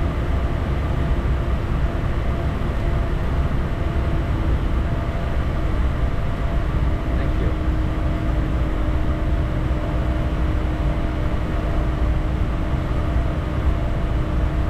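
Bombardier Challenger 350 business jet in flight: a steady rumble of airflow and turbofan engines, with a faint steady hum of tones over it.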